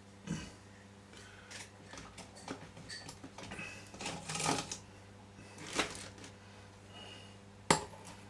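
Small clicks, taps and rustles of wires and tools being handled on a workbench, with a sharp click near the end. A faint steady hum runs underneath.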